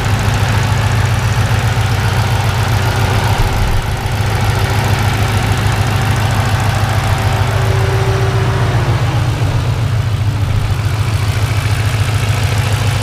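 Turbocharged 2007 Ford Mustang GT's 4.6-litre V8 idling, heard under the open hood, with a deep thump from the back of the engine that the owner suspects is an exhaust leak at the headers rather than engine knock.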